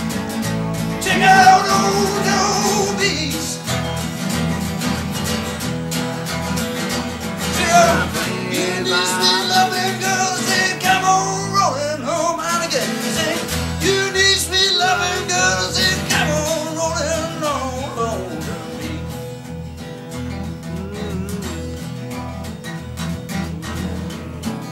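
A song with guitar and a singer's voice over a steady bass. The singing drops away about three quarters of the way through and the music carries on a little quieter.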